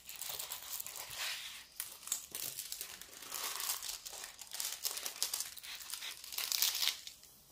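Clear plastic covering of a diamond-painting canvas crinkling and rustling as hands handle and smooth it flat, a busy crackle of plastic that dies away near the end.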